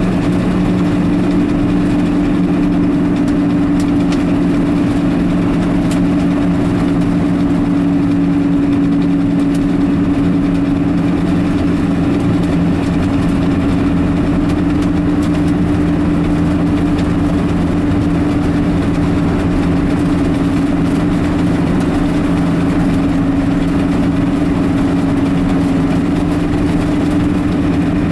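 Car cruising at a steady speed, heard from inside the cabin: an even low drone of engine and tyre noise that holds two steady low notes.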